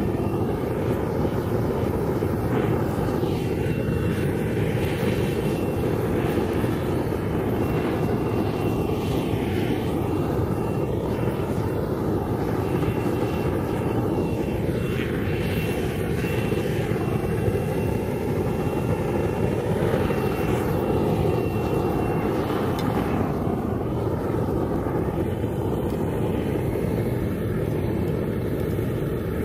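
Homemade propane forge torch burning steadily, a continuous rushing noise as its flame sears a steak on a wire grate.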